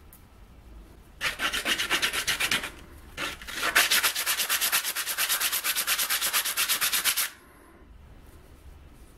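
A small wooden disc sanded by hand, rubbed back and forth on a sheet of sandpaper in quick, even, scratchy strokes. It comes in two bursts: a short one about a second in, then a longer one of nearly four seconds.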